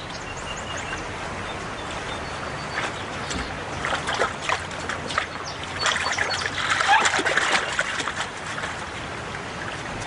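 Water splashing and trickling as wolves wade through a shallow stream and a wolf pup swims across it. The splashing is busiest and loudest around six to eight seconds in.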